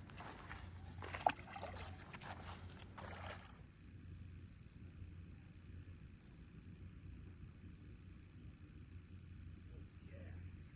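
Faint rustles and clicks of handling for the first few seconds, with one sharp click a little over a second in; then a steady high-pitched insect trill, as of crickets, over a low steady hum.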